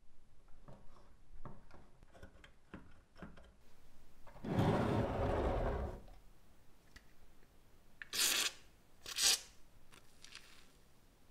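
Small clicks and knocks from a 1970s Tonka Formula 1 toy car being handled, its sprung suspension pressed down. About halfway through comes a louder rush of noise lasting about a second and a half, and near the end two short hissing scrapes about a second apart.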